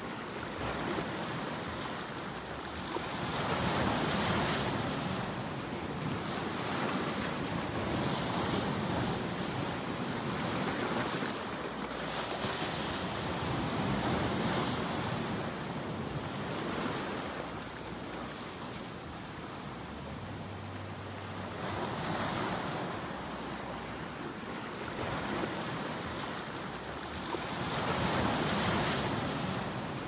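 Ocean surf: waves breaking and washing in, the rushing noise swelling and fading every four to six seconds, with a quieter lull midway.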